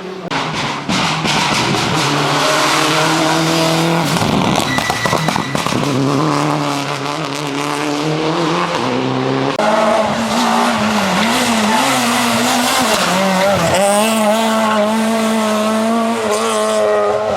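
Ford Fiesta RS WRC rally car's 1.6-litre turbocharged four-cylinder engine at full effort, its pitch repeatedly climbing and dropping as it changes gear, with a sharp drop and recovery about three-quarters of the way through.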